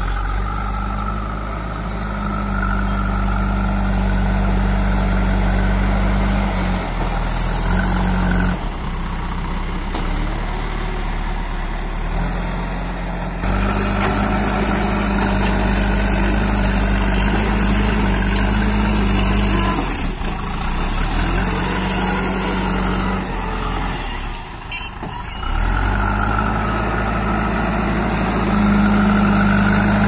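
JCB 3DX backhoe loader's diesel engine running steadily while the front loader bucket carries and pushes soil. The engine note changes twice, once about a quarter of the way in and again near the end.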